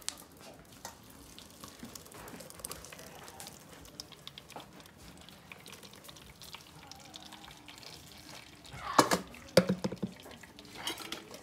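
Thick blended guajillo chile sauce pouring from a glass blender jar into a metal mesh strainer over a steel pot: a soft, faint trickle and drip. About nine seconds in come a few loud knocks and clinks.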